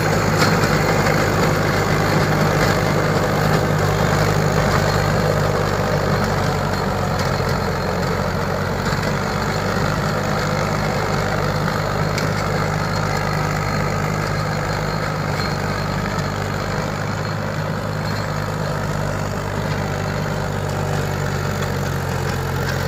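Mahindra 275 DI XP tractor's three-cylinder diesel engine running steadily under load, driving a 36-blade rotavator tilling soil. The engine note holds steady and grows slightly quieter as the tractor moves away.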